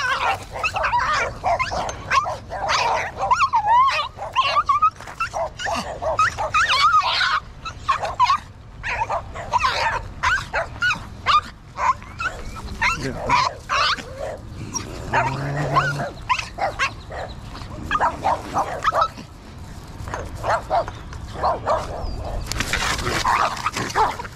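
Small dogs barking and yapping over and over, short high barks coming in quick runs with brief lulls between them.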